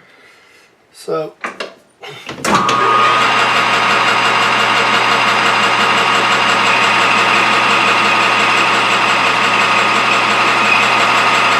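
A metal lathe switched on about two and a half seconds in, then running steadily with a high whine over a low hum as it turns a stainless steel shaft.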